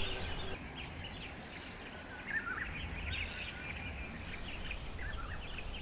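Outdoor ambience: insects keep up a steady, high-pitched trill, with scattered short bird chirps over it.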